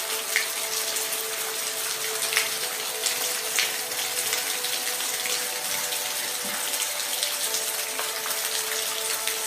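Steady rain falling: a dense, even hiss with scattered sharper drop ticks. A soft sustained tone sits underneath and shifts pitch near the end.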